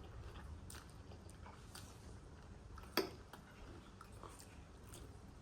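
Faint chewing of spicy instant noodles, with scattered small clicks and one sharper click about three seconds in.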